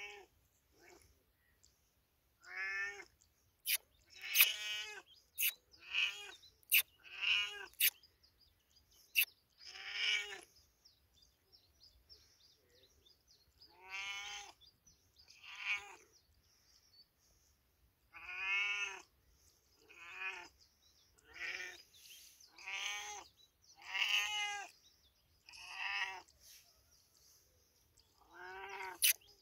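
Tabby-and-white domestic cat meowing over and over, more than a dozen drawn-out meows, each rising then falling in pitch, with pauses of a second or more between them. A few sharp clicks come among the meows in the first third.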